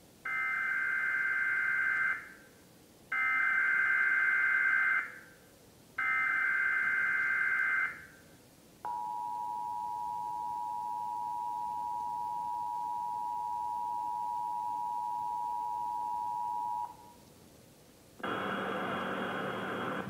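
Emergency Alert System tornado warning test played from a television: three bursts of SAME header data, a digital warble about two seconds each, then the two-tone attention signal held steady for about eight seconds. A voice message begins near the end.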